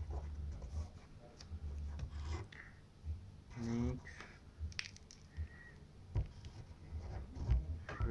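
Pencil scratching and tapping on paper in short, uneven strokes, with light knocks against the table beneath. A brief hum of a voice about four seconds in.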